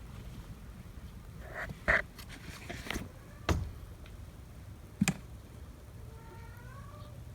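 Kitten mewing: a short mew about two seconds in and a faint, wavering mew near the end. Two sharp knocks fall in between.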